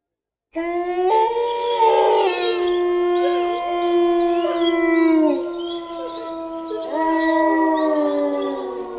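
Several animal voices howling together in long, overlapping drawn-out calls that slide down in pitch at their ends, starting abruptly about half a second in and swelling again near the end.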